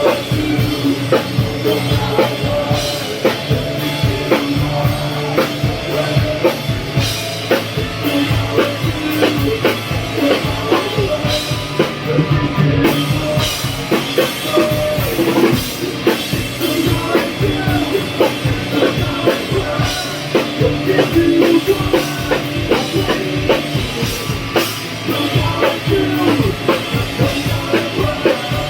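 Rock band playing, with a drum kit beating a steady, busy rhythm under guitar and other instruments.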